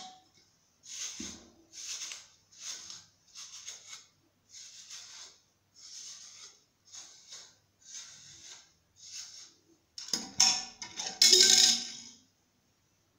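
Hair being combed: about a dozen even strokes of a comb dragged through thick hair, each a short hiss, roughly three strokes every two seconds. Louder, denser rustling of the hair being handled comes near the end.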